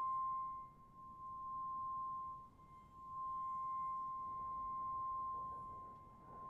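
A steady high-pitched ringing tone, a single pure note with a faint overtone above it, held without a change in pitch. It swells and fades in loudness, dipping about a second in and again near three seconds, then swelling before it fades toward the end.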